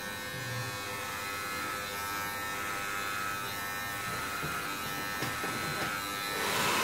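Cordless electric hair clippers buzzing steadily as they trim a beard down to a number one, a little louder near the end.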